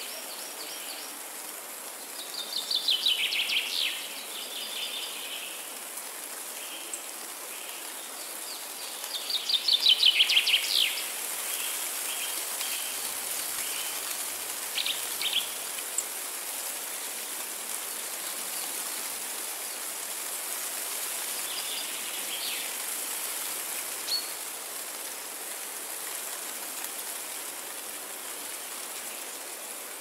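Wind rustling through pine and broadleaf treetops as a steady hiss. A songbird sings two loud, rapid trilled phrases that fall in pitch, about three and ten seconds in, and there are a few shorter chirps later on.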